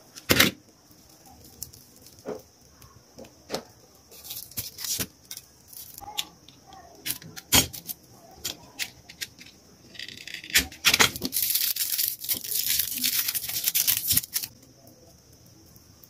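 Hand-working noises of stripping the end of a shielded Cat7 cable: scattered clicks and taps, then, from about ten seconds in, about four seconds of dense rustling and tearing as the foil shielding is pulled off the twisted wire pairs.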